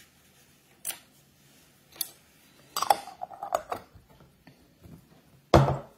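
Tabletop handling: a few sharp clicks and taps, then a screw-top lid being twisted onto a glass jar with short scraping sounds around the middle, and a louder knock near the end.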